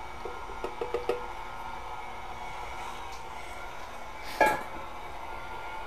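KitchenAid tilt-head stand mixer running steadily on low, beating cake batter as the dry mixture goes in. A few light taps come about a second in, and one sharp, louder clink a little past four seconds in.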